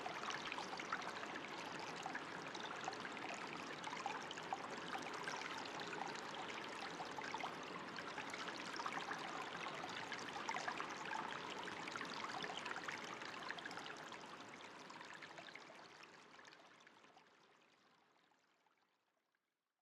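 Flowing, trickling stream water, a steady bubbling wash that fades out over the last few seconds to silence.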